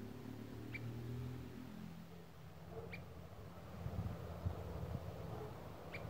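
Short-crested flycatcher (Myiarchus ferox) calling: three short, high single notes about two seconds apart. Under them is a low rumble with a few soft knocks around four seconds in.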